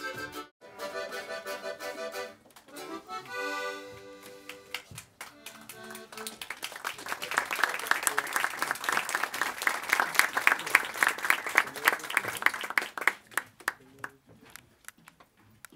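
A musical tune ends about five seconds in, and an audience then applauds for about seven seconds before the clapping fades out.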